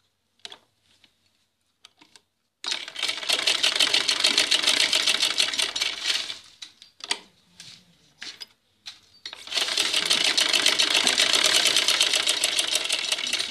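Sewing machine stitching through buckram-lined fabric in two runs. After about two and a half seconds of near quiet with a few clicks, it rattles rapidly for about four seconds, then stops with a few scattered clicks. It starts again about nine seconds in and runs on.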